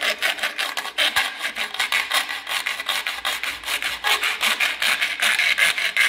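Flat hand file rasping back and forth along the edge of a rectangular cutout in a plastic switch-panel box clamped in a vise, in quick, regular strokes, enlarging the opening so the panel will fit.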